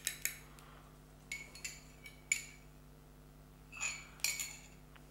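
A metal spoon clinking and scraping against a small glass bowl as beaten egg is emptied out of it: a few separate short clinks with brief ringing.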